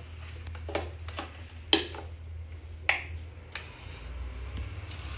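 Three sharp clicks about a second apart, the middle one loudest: a plug pushed into a wall socket and the socket's switch flicked on to power an electric sandwich grill.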